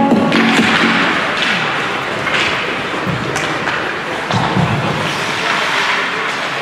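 Ice hockey play in an indoor rink: skates scraping and carving on the ice, with scattered clacks of sticks and puck and a few dull thuds, echoing in the hall. Music from the arena speakers fades out at the very start.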